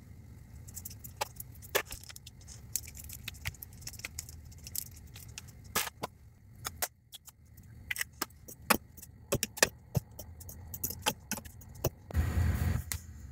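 Pot of instant ramen boiling on a gas stove: a steady low rumble with frequent sharp clicks and pops from the pot. A louder rushing burst comes near the end.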